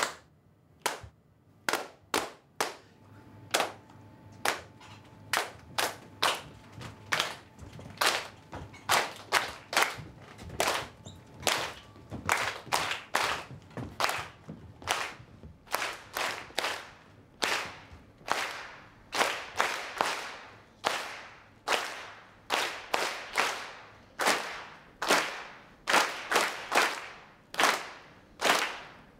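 Sharp hand claps in a beat that quickens from about one clap a second to about two a second.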